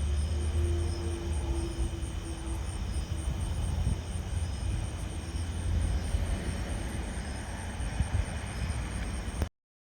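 Low, steady rumble of wind or distant noise outdoors, under a fast, even high-pitched pulsing of insects chirping. A faint outdoor tornado warning siren tone sinks and fades away in the first few seconds. The sound cuts off abruptly near the end.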